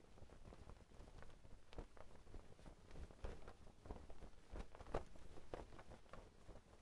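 Clothes hanging on a washing line, flapping and rustling in the wind: faint, irregular soft flutters and flaps over a low rumble of wind.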